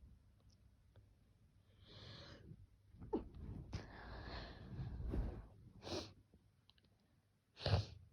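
A person sniffling and sneezing: a series of noisy breaths and nasal bursts, with a longer noisy stretch in the middle and the loudest, short sharp burst near the end.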